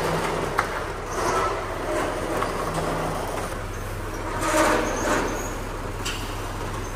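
Electric steel roller shutter door opening on its motor, a steady low running sound as the slatted door winds up.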